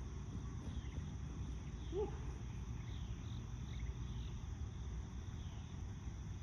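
Outdoor ambience on a wooded disc golf course: faint insect and bird chirps over a steady low rumble, with one short call about two seconds in.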